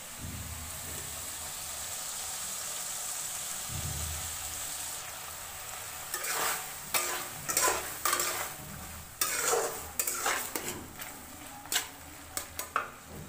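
Potato curry sizzling in a metal kadai, with a spoon stirring it from about halfway: a series of quick, irregular scrapes and clinks of the spoon against the pan over the steady sizzle.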